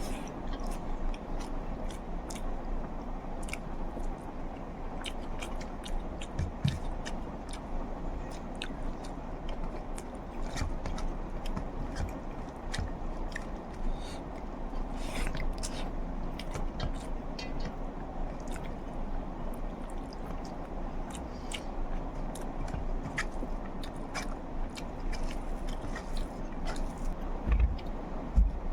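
Close-miked eating: chewing and wet mouth clicks as curry and rice are eaten, many small clicks scattered throughout over a steady background hum, with a couple of soft thumps near the end.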